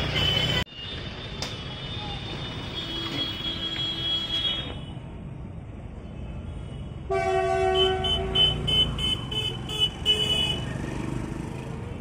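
Road traffic rumbling, with motorcycles passing; about seven seconds in a vehicle horn sounds, one held note and then a quick run of short toots.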